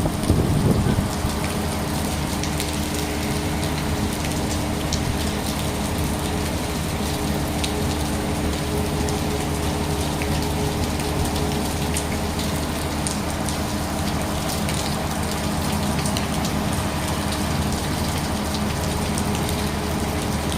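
Steady rain falling, with scattered drops ticking through the hiss. A steady low hum runs underneath, and there is a brief low rumble at the very start.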